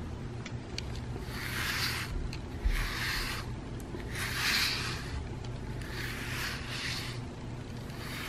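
A pet grooming brush drawn through a cat's fur in about five separate brushing strokes, each under a second long, with a soft thump about three seconds in.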